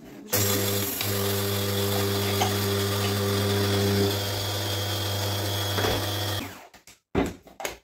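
Electric blade coffee grinder running for about six seconds, grinding a single portion of flax, black sesame and raw sunflower seeds. It makes a steady motor hum that shifts slightly in tone about four seconds in, then cuts off, followed by a couple of short clicks.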